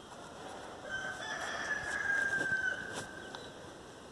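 A rooster crowing once, a single drawn-out call whose long final note sags slightly in pitch.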